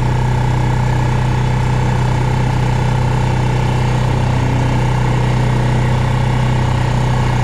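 A vehicle's engine running at a steady speed, heard from on board as it drives along, with a constant low hum.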